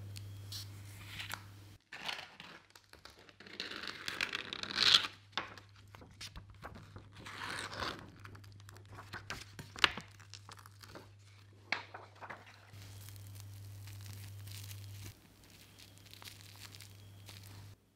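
Clear plastic film being handled, crinkling and rustling with several sharp crackles and small clicks: a plastic cake collar pulled away from the side of a jelly cake, then cling film pressed over the cake top.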